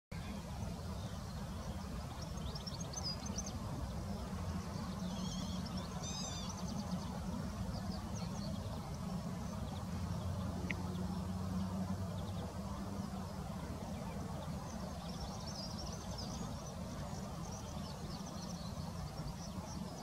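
Steady low outdoor rumble with small birds chirping and twittering in short high bursts several times.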